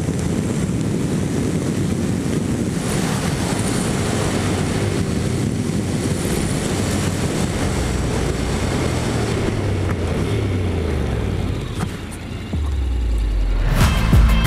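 Honda NC750X DCT's parallel-twin engine running at road speed under heavy wind rush on the microphone. In the second half the engine note steps downward, and music comes in near the end.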